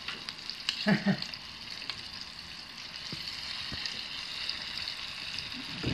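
Oliebollen dough balls sizzling and bubbling as they deep-fry in a pot of hot oil: a steady frying hiss, with a few light clicks.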